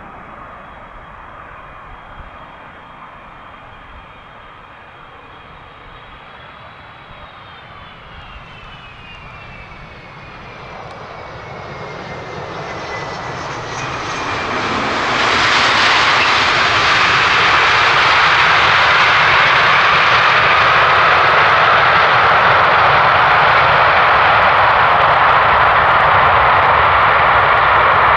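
Jet engines of a large airliner on landing passing by: a high fan whine falls in pitch as it goes past, then loud jet engine noise builds sharply about halfway through and holds steady.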